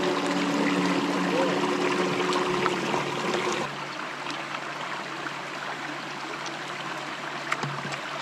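Water running in a small stream among rocks, a steady rushing trickle. A piece of background music plays over it and stops about three and a half seconds in.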